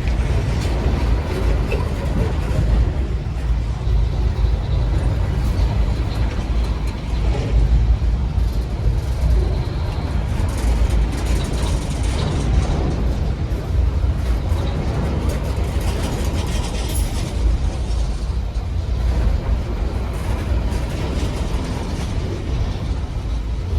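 GE ES43BBi diesel-electric locomotive working hard under full power on an upgrade, a loud, steady, deep rumbling engine.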